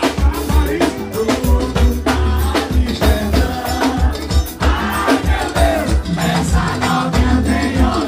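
Live forró music played loud: singing over a steady bass beat with drums and shaken percussion.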